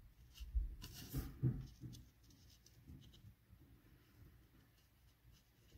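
Watercolor brush tip dabbing on paper in quick stippling touches: faint scratchy taps, with a few soft bumps in the first two seconds and quieter taps after.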